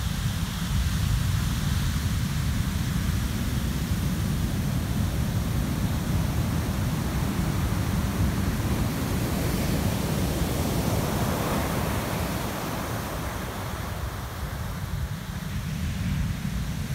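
Heavy surf crashing and whitewater washing up a sand beach, a continuous rushing roar with wind buffeting the microphone. A louder rush of foaming water swells about ten seconds in and eases off a few seconds later.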